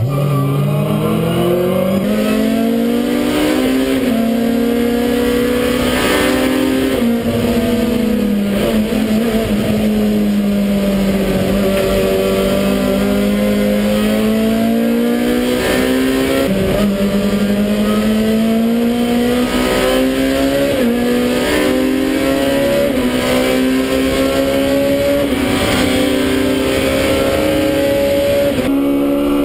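Touring race car engine heard from inside the cockpit at racing speed. Its pitch rises under acceleration and falls away, with sudden drops at gear changes. The sound breaks off sharply about two seconds in and again near the end, where the footage switches between two cars' onboard cameras.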